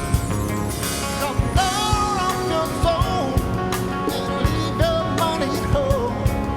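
Rock song: a voice sings a sliding melody over a band with a steady drum beat, the singing coming in about a second in.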